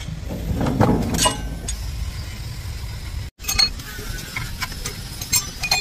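Metal tools and engine parts clinking and knocking against each other during a diesel engine rebuild, with scattered sharp metallic taps over a low workshop rumble. The sound drops out completely for an instant about halfway through.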